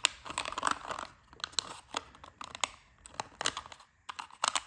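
Thin 3D-printed plastic strips being bent and their flaps folded into slots by hand, giving irregular sharp clicks and crinkling.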